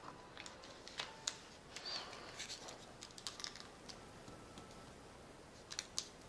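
Origami paper being folded and creased by hand: irregular crisp crackles and small clicks of the paper as fingers press down the folds, most dense in the middle, with a louder pair of snaps near the end.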